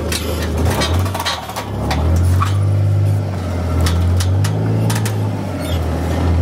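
Side-by-side utility vehicle's engine running at low speed, its pitch stepping up about a second in and again at two seconds, easing back near the end, with scattered light clicks and rattles.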